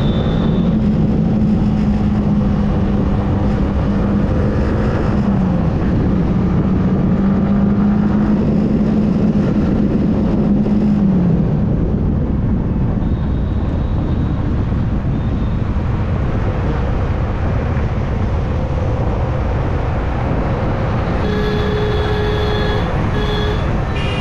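Yamaha R15M motorcycle's single-cylinder engine running on the move, with heavy wind and road noise; its engine note holds steady and then falls in pitch twice, about 5 and 11 seconds in. Two short beeps sound near the end.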